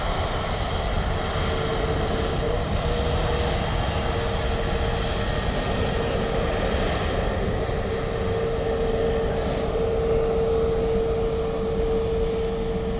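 Jet engines of airliners taxiing at idle thrust: a steady rumble with a whining tone that grows stronger partway through and holds.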